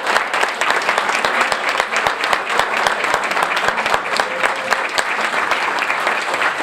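Large audience applauding: many hands clapping together, sustained and steady.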